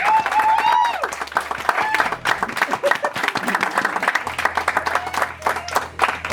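Audience applauding and cheering as the song ends, with a few high whoops in the first second.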